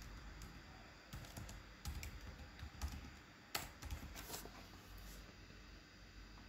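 Faint typing on a computer keyboard: irregular key clicks, the sharpest about three and a half seconds in.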